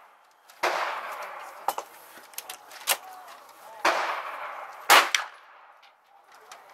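Gunshots on a shooting range's firing line: loud shots about a second in, about four seconds in and about five seconds in, the last the loudest, with fainter single shots between them. Each loud shot trails off in a long echo.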